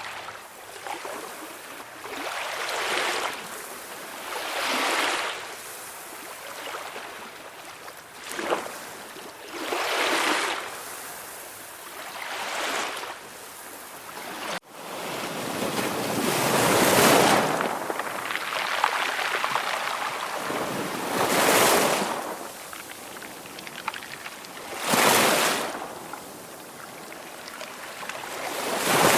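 Ocean surf: waves breaking and washing in one after another, each a rising and falling hiss every few seconds, the biggest ones in the second half. A brief sudden dropout about halfway through.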